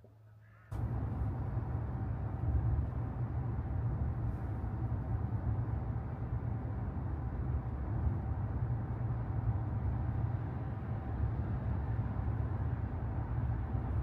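A steady low rumble of a running vehicle, starting abruptly just under a second in, with a faint steady tone above it.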